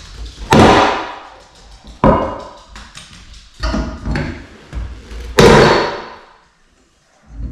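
Four heavy knocks about one and a half to two seconds apart, each with a short ringing decay, from demolition work on particleboard floor underlayment with a pry bar. The first and last knocks are the loudest.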